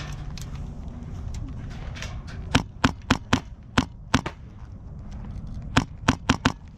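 Airsoft guns firing single shots: six sharp cracks in quick succession starting about two and a half seconds in, a short pause, then five more near the end.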